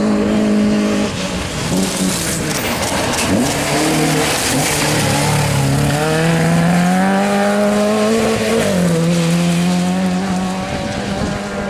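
Peugeot 205 Rallye rally car's engine running hard at high revs, its note climbing through a long pull for several seconds and dropping sharply about three-quarters of the way through, with the hiss of tyres on loose gravel underneath.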